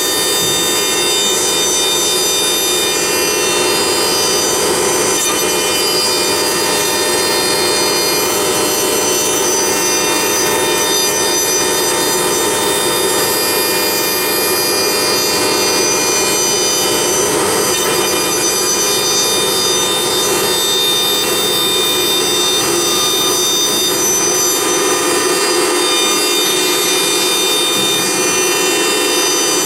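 CNC router spindle cutting into a wooden column as the rotary axis turns it: a steady whine of the spinning spindle over the continuous rasp of the cutter in the wood.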